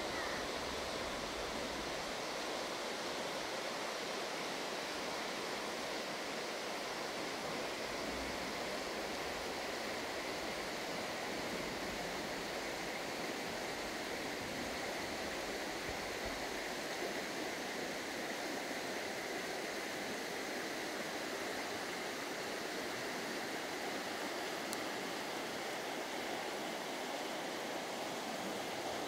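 Shallow mountain river flowing steadily over a pebble bed and small riffles, an even, unbroken rush of water.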